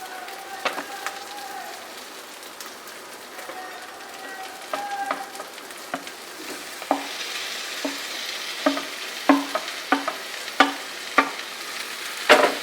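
Capsicum and tomatoes sizzling in hot oil with fried onions in a pan while a spatula stirs them. The sizzle grows louder about seven seconds in, with sharp knocks of the spatula against the pan every half second or so.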